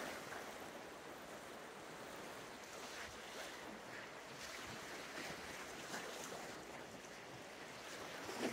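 Small sea waves washing steadily onto a stony, shingle shore, with a little wind on the microphone.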